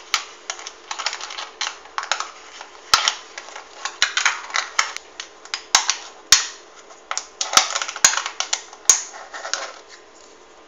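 Thin aluminium soda-can halves crinkling and clicking as they are pressed and twisted one inside the other, their notched rims catching: a fast, irregular run of sharp clicks and crackles that dies down near the end.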